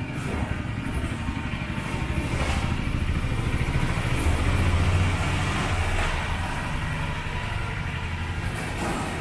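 Low engine rumble that grows louder to a peak about halfway through and then eases off.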